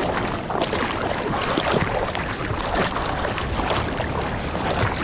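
Seawater sloshing and splashing around a surfboard's nose as it moves through choppy water, heard close up from a board-mounted camera, with irregular splashes over a steady wash and some wind on the microphone.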